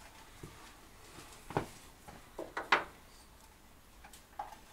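A few short clicks and knocks from hand tools and parts being handled on an engine hanging in a car's engine bay, while screws are taken out; the loudest come in a quick cluster about two and a half seconds in.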